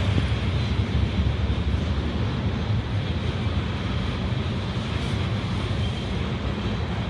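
A freight train of railroad tank cars rolling past close by, a steady low rumble of wheels on rails.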